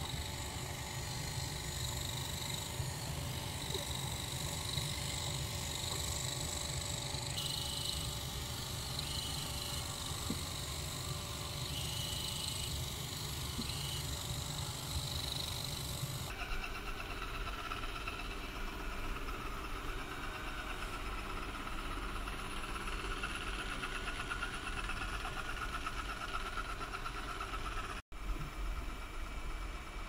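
Ecovacs DEEBOT T9+ robot vacuum running while it vacuums and mops, a steady motor hum with a high whine. The sound changes character about halfway through and drops out for an instant near the end.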